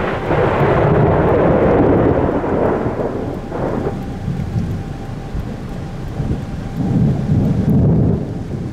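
Thunderstorm noise: a steady rush of rain and wind with a low rumble, louder over the first three seconds and again near the end.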